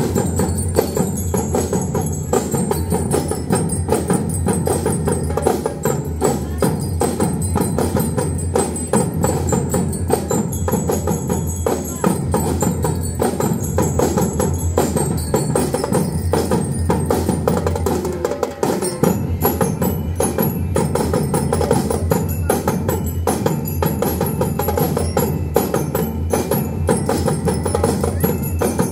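A drum and lyre corps playing live: snare and bass drums beat a fast, dense rhythm while bell lyres ring a high melody on top. The drums drop out for a moment about two-thirds of the way through, then carry on.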